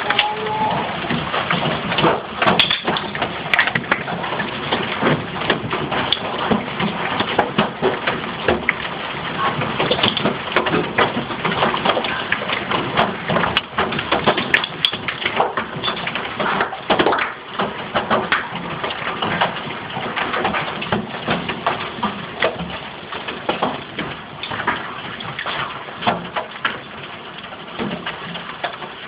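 Large hailstones, the size of golf balls, pelting the house: a dense, continuous clatter of many hard impacts over a hiss of heavy rain.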